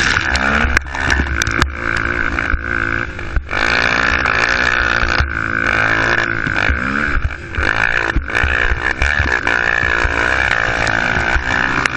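Youth ATV engine, heard from a camera mounted on the quad, revving up and down as it is ridden hard over a rough dirt trail, with its pitch rising and falling several times. Sharp knocks and clatters from the machine hitting bumps are mixed in throughout.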